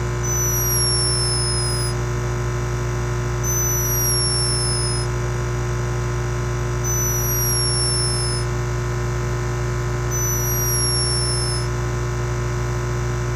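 A steady electronic drone made of many fixed tones, with a short falling high-pitched chirp that repeats identically about every three seconds.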